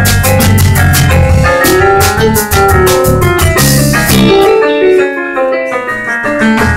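Live jazz band playing, with drum kit and keyboard. A little past four seconds in, the drums and the low end drop out, leaving the keyboard nearly alone; the full band comes back in at the very end.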